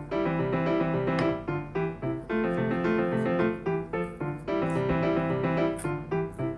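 Background piano music: a light melody over a steady accompaniment of repeated notes.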